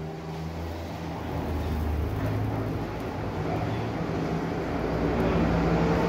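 Steady low engine drone with a hum, slowly growing louder.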